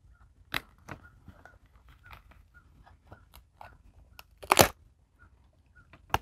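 Fabric repair tape and RV awning fabric being handled and pressed into place by hand: scattered small crinkles and clicks, a sharper click about half a second in, and a brief louder rustle about four and a half seconds in.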